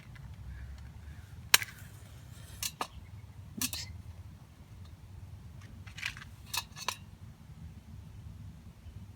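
A handful of sharp clicks and snaps, about six spread over several seconds, the loudest about a second and a half in, as a fire is started in a small homemade wood gasifier stove. A low steady rumble runs underneath.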